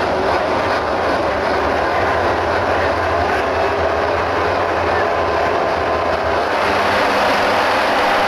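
A pack of MotoGP racing motorcycles, 1000 cc four-stroke prototypes, running on the straight together, their engines blending into a loud, steady, dense din that grows a little louder near the end.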